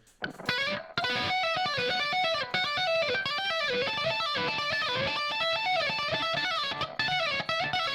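Electric guitar solo played with two-hand tapping: fast, repeating runs of notes over the band, starting about a second in.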